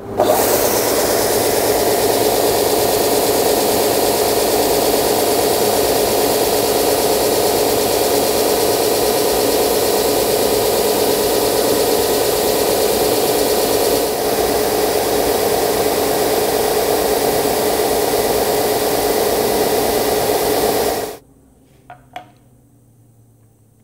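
Edge belt sander running while a mahogany handle is sanded against its end drum to a curved radius: a loud, steady rushing noise that stops suddenly near the end, followed by a couple of light knocks.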